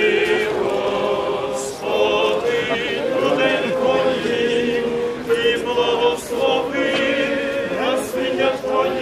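A choir sings an Eastern-rite liturgical chant: several voices sustain long notes together, with short breaks between phrases.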